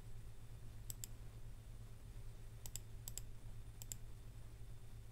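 Computer mouse clicking four times, each click a quick press-and-release double tick, over a faint steady low hum.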